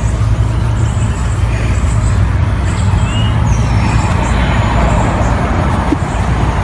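Loud, steady low rumbling noise with a hiss above it, of the road- or wind-noise kind.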